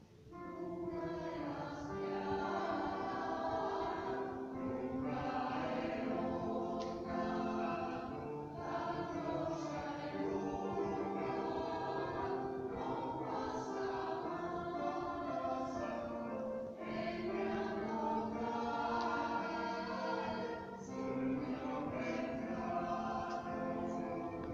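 Choir singing in several parts, holding long chords; it comes in just after a brief pause at the start.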